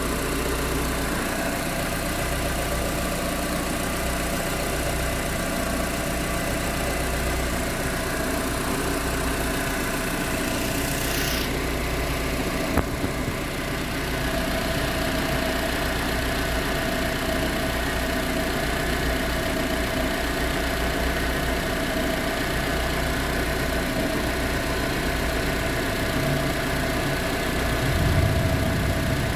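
Proton Exora CPS 1.6-litre four-cylinder engine idling steadily, with the rattle the owner wants to find the cause of. A single sharp click comes about halfway through, and the low hum swells briefly near the end.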